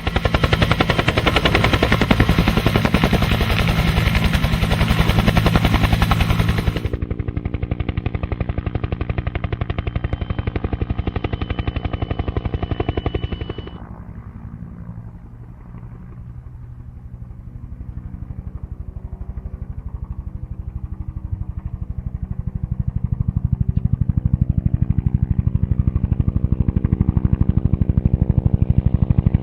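Helicopter running, its rotor beating out a rapid, steady chop over the turbine. It drops in loudness about halfway through and builds again toward the end.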